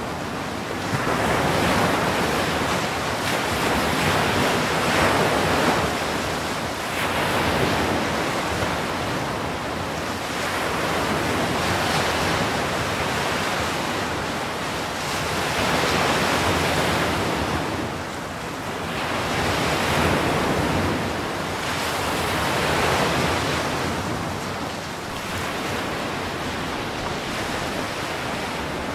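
Ocean surf breaking and washing over the shore: a continuous rush of foaming water that swells and eases every few seconds as each wave comes in.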